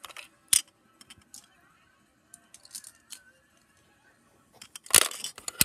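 Toys being handled: a sharp click about half a second in, a few faint light clicks, then a quick clatter of clicks near the end as hard pieces knock together.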